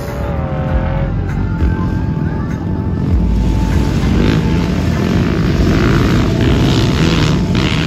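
Engines of off-road dune vehicles (sand rail, quad and dirt bike) running and revving on the sand, growing louder about three seconds in.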